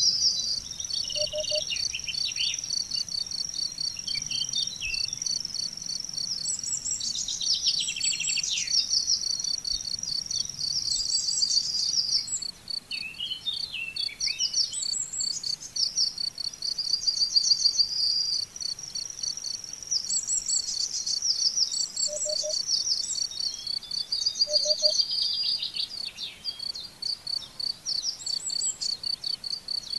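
Crickets trill steadily in a fast, even high pulse. Songbirds sing high, twittering phrases over them, a new phrase every few seconds.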